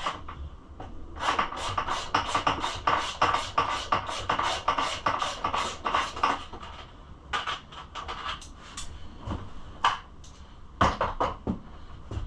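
Ratchet wrench clicking in a quick steady run of about five or six clicks a second, then a few shorter runs of clicks near the end, as an 8 mm bolt holding a dirt bike's fuel tank is backed out.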